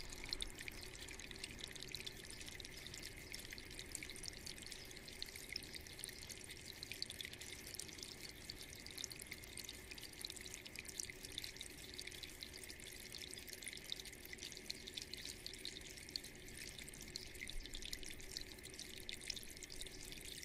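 Water trickling down the stacked slate strips of a floor water-wall fountain: a steady, faint trickle with many small drips.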